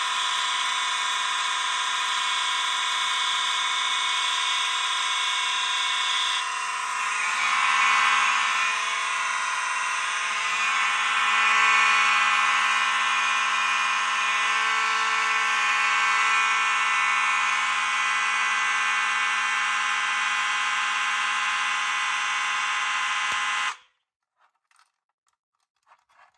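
A whole collection of fire alarm horns and bells, among them Wheelock and Edwards devices, sounding all at once in a loud, dense clash of steady tones. One high tone drops out about six seconds in, and the whole lot cuts off suddenly near the end, leaving only a few faint clicks.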